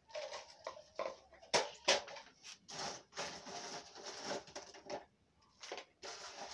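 Dry pine bark pieces rustling and clattering as they are handled on a black plastic saucer, with two sharp knocks about a second and a half in.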